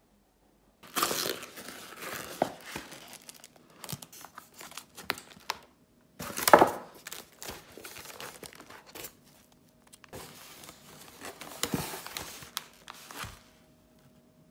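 Packaging being unwrapped and handled: crinkling, rustling and tearing in several bursts, the loudest about a second in, midway and near the end, with small clicks and knocks between them.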